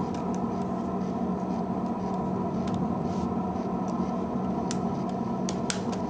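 Steady electrical or fan hum carrying a low tone and a higher tone, with a few small sharp clicks near the end from small phone parts being handled.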